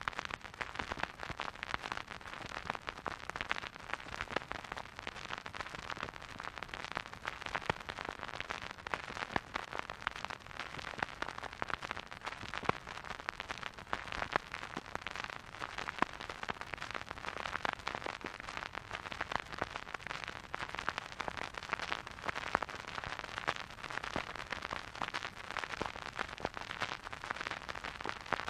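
Vinyl record surface noise from a record player's stylus riding the groove: a steady soft hiss with a dense scatter of small crackles and pops.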